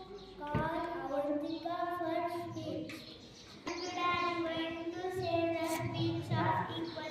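A child singing a song, with long held notes.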